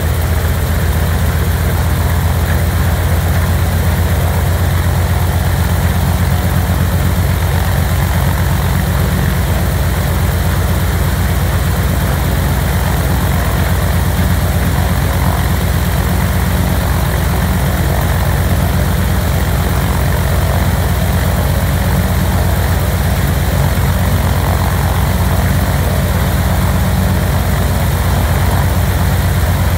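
Antonov An-2's nine-cylinder radial piston engine running steadily at idle, its propeller turning, while it warms up after a cold start.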